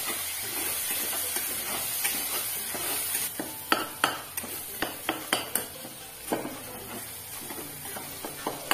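Metal spoon stirring and scraping diced elephant foot yam with spices in a stainless steel pressure cooker, over a sizzle of frying in oil as the vegetable is sautéed. From about three and a half seconds in come sharp clinks of the spoon against the pot.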